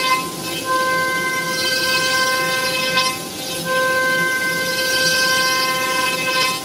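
CNC foam cutting machine's tool head running as it cuts EPE foam: a steady pitched whine with several overtones over a hiss, dropping away briefly about half a second in and again about three seconds in.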